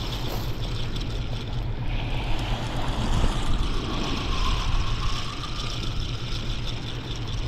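Steady wind rumble on the microphone with waves washing on a shingle shore, while a fixed-spool reel is wound in to bring a hooked fish to the beach.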